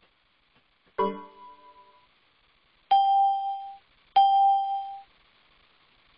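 Electronic chime from video-call software: one ringing tone about a second in, then two identical steady beeps about a second and a half apart.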